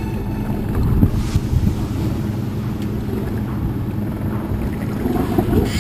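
A boat engine running steadily under loud wind buffeting the microphone on open sea, with a low thump about a second in and a brief hiss near the end.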